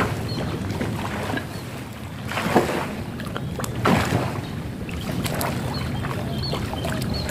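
A swimmer's arm strokes splashing and churning the water of a swimming pool, over a steady rushing background, with louder splashes about two and a half and four seconds in.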